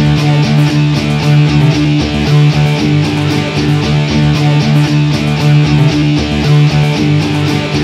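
Guitar-driven instrumental music with a steady beat, strummed guitar over sustained low notes.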